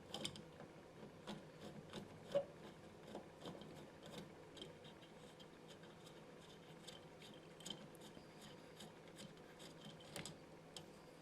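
Faint scraping and small clicks of a screwdriver working around an old light switch where it meets the drywall, breaking the paint seal to free it, with one sharper click about two and a half seconds in.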